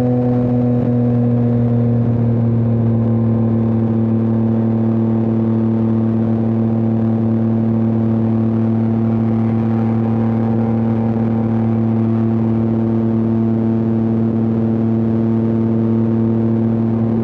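Yamaha R9's three-cylinder engine and exhaust pulling at steady cruising revs while riding. The pitch eases down slightly in the first second, then holds level throughout.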